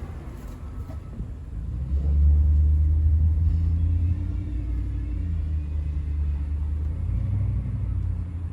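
Low rumble of a motor vehicle's engine, swelling about two seconds in and holding, then easing off a little.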